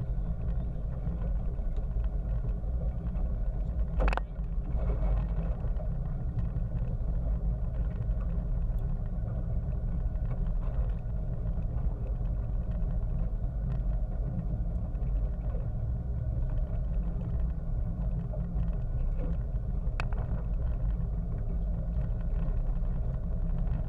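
Boat engine running steadily, its sound mostly low-pitched, with a single sharp knock about four seconds in.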